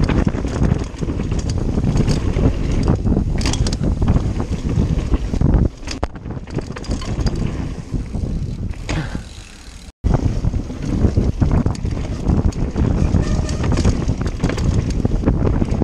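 Mountain bike ridden fast down a dirt trail: wind buffets the action-camera microphone while the bike rattles and knocks over the rough ground. It eases off for a few seconds in the middle and cuts out for an instant about ten seconds in.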